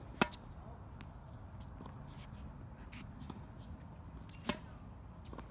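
Two tennis serves, each a single sharp pop of the ball off the racket strings, one just after the start and one about four and a half seconds in. The first is hit with a pancake (Eastern-style) grip, the second with a continental grip. Both sit over a steady low background rumble.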